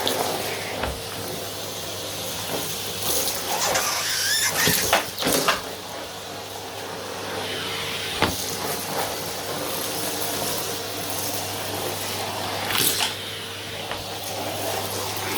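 Vacuum cleaner running steadily, with scattered sharp clicks and rattles over the hum.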